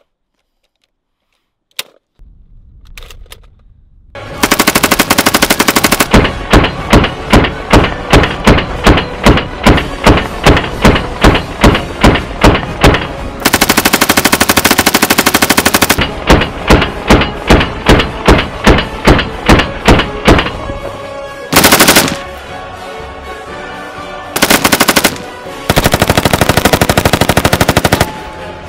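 RPD light machine gun, 7.62×39 mm, firing long strings of shots that start about four seconds in: some come about three a second, others run together into dense bursts. Music plays faintly underneath.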